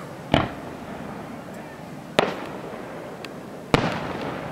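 Aerial firework shells bursting: three sharp bangs, the first two about two seconds apart and the third a second and a half later, each trailing off briefly.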